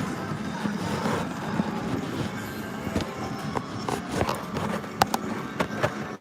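Casino floor ambience: a steady din of machine sounds and faint background music, broken by scattered sharp clicks and clacks.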